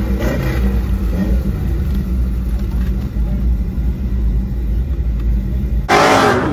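Modified 2015 Audi S5's supercharged 3.0 V6 idling, heard from inside the cabin as a steady low drone. Near the end it cuts sharply to louder, brighter car noise out on the drag strip.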